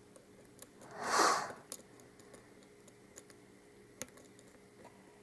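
Faint, scattered light clicks of a lock pick and tension wrench working the pin stack inside an Abus Titalium 83/40 padlock during single-pin picking. A short breathy rush of noise about a second in is the loudest sound.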